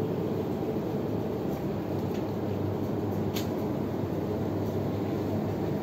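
Steady low background hum of a supermarket aisle lined with open refrigerated display cabinets, with one short click about three and a half seconds in.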